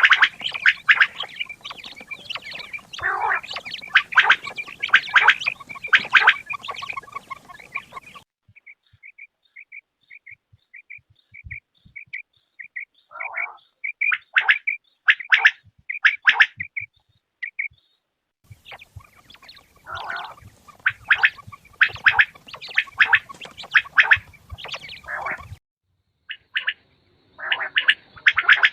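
Quail calling: dense runs of short, sharp repeated notes, broken by a stretch of single evenly spaced chirps at about two a second, with the sound cutting off abruptly twice.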